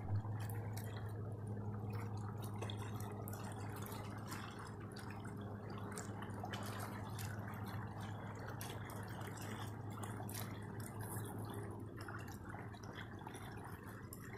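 Water lapping and dripping close by, with many small ticks and splashes, over a steady low hum.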